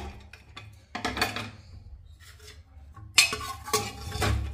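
Metal pressure cooker lid and pot clattering as the inner-fitting lid is worked free, then a metal ladle clinking and scraping against the pot as it scoops cooked chana dal. A few light clinks come about a second in, and a louder run of metal knocks follows a little after three seconds.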